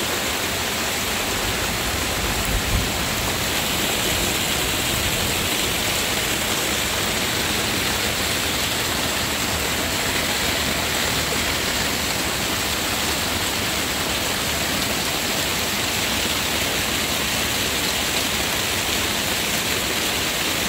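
Heavy rain pouring steadily on trees and foliage, a dense even hiss. A brief low thump about two and a half seconds in.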